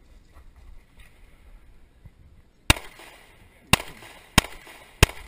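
Four pistol shots, sharp and loud: the first comes about two and a half seconds in, and the other three follow at intervals of about a second, then two-thirds of a second.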